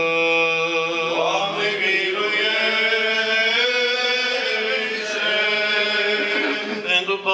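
Male Orthodox church chant: voices sing a slow, ornamented melody over a steady low held drone note.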